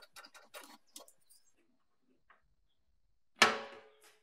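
Light clicks and taps of fuel hoses and the fuel filter being handled under a car, then about three seconds in a single sharp knock that rings briefly and fades as a hose is pulled free.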